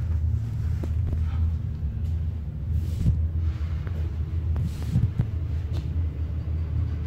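Schindler electric traction lift travelling downward, heard from inside the car: a steady low rumble of the ride, with a few light knocks partway through.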